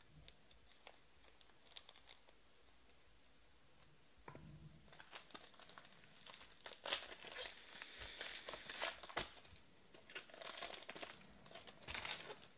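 Silver foil trading-card pack being torn open and crinkled in the hands. It starts about four seconds in, after a few faint clicks, and is loudest in the second half.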